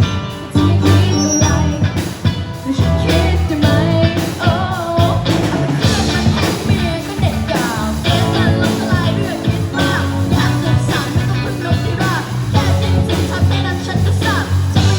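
Pop-rock song with bass and drums and a voice singing; the sung line comes in more strongly about six seconds in.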